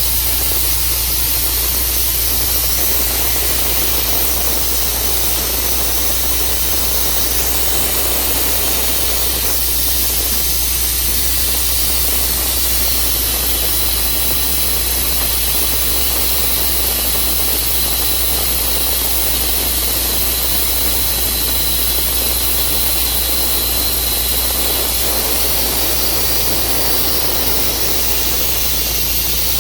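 Tru Cut sawmill running steadily as it saws a black walnut log: an even, unchanging mechanical noise.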